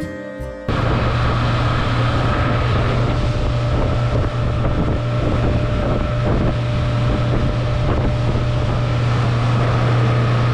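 Motorboat engine running steadily at speed, with wind buffeting the microphone and water rushing past the hull. A slide-guitar music track cuts off abruptly just under a second in.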